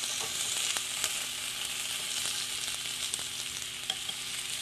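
Vegetables sizzling on the hot nonstick grill plate of a Starfrit Rock smokeless electric grill: a steady hiss with scattered small pops.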